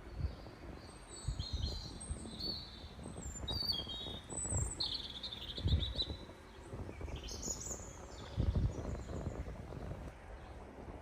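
Songbirds chirping and singing in short phrases and trills, with a few low thumps mixed in.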